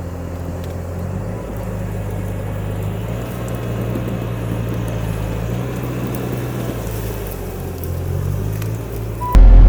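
Bobcat T650 compact track loader's diesel engine running steadily under work, its pitch shifting slightly up and down.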